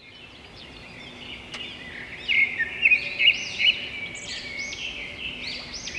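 Birds chirping and twittering, many short calls and whistles overlapping, fading in over the first couple of seconds.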